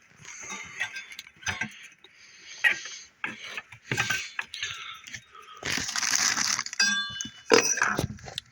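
A run of clicks, knocks and light clinks from objects being handled, with a rustling burst about six seconds in and a brief ringing clink just after it.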